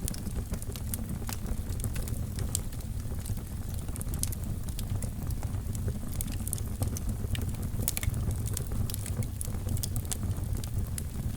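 Wood fire burning in a fireplace: a steady low rumble of flames with frequent small, sharp crackles and pops scattered irregularly throughout.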